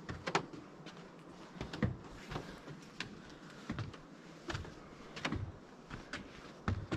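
A hiker's footsteps on the trail, steady walking at about three steps every two seconds, each step a low thud with a crisp crunch.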